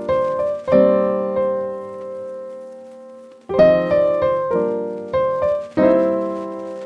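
Background music: piano chords struck and left to ring, with a long held chord fading out in the middle.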